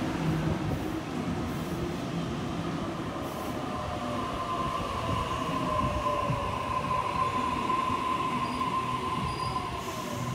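Sydney Trains A set (Waratah) double-deck electric train pulling into the platform and slowing to a stop: rumbling running noise, with a steady high squeal from about four seconds in and a lower whine falling in pitch as it slows.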